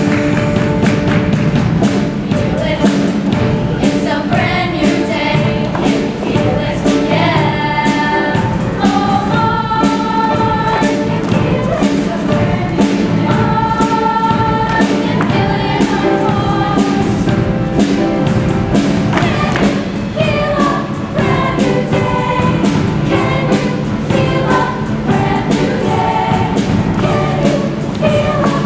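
Show choir singing together over instrumental accompaniment with a steady beat.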